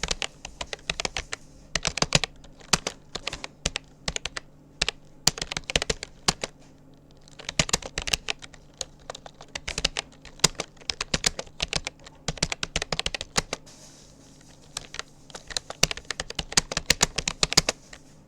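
Typing on a Rapoo computer keyboard: quick runs of key clicks in bursts with short pauses between them, stopping near the end.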